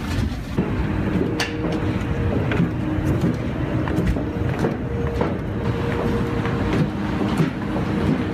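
Steady low machinery rumble with a droning hum that comes in about half a second in, and faint footsteps.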